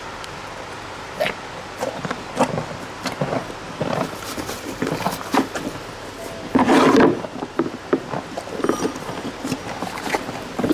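An animal eating, with irregular knocks and clatters, and one short, louder animal call about six and a half seconds in.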